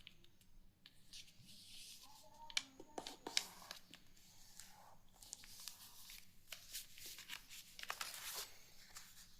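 A sheet of paper being handled and folded by hand: soft rustling and crinkling with scattered sharp creasing taps, the sharpest a little after two and a half seconds and three and a half seconds in.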